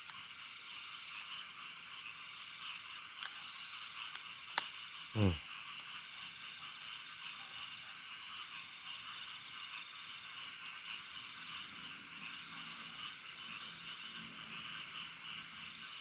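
Steady chirping of night insects, with a sharp click about four and a half seconds in and a short low sound falling in pitch just after it.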